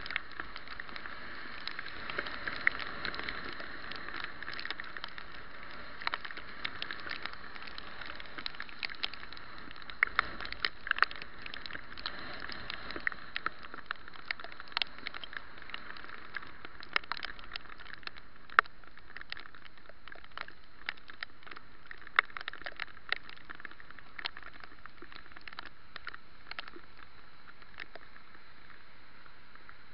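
Rain and wet-road noise recorded on a bicycle-mounted camera: a steady hiss broken by frequent irregular sharp ticks, the sound of raindrops striking the camera housing.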